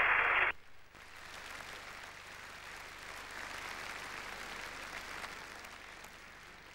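Audience applauding, fairly faint, swelling slightly and then dying away near the end.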